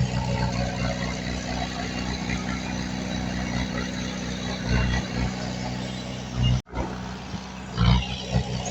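Diesel engine of heavy earthmoving machinery running steadily, with several louder thuds in the second half and a brief dropout about two-thirds of the way through.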